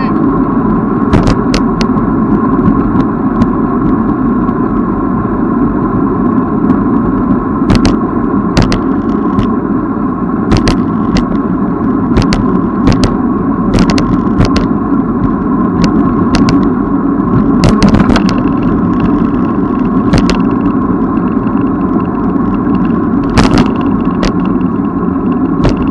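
Steady rumble of wind and road noise from a moving bicycle, with sharp clicks or knocks at irregular intervals, sometimes several close together.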